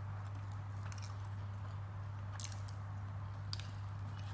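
Eating by hand: a few short wet clicks of chewing and of fingers working potato curry and poori on a plate, over a steady low hum.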